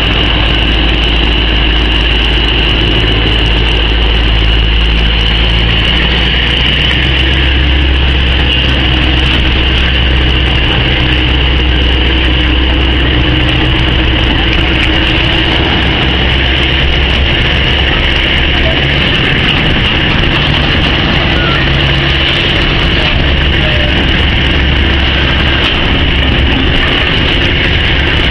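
DE24 diesel locomotive's engine running with a deep steady hum that steps up and down in pitch a couple of times, under a steady high-pitched hiss.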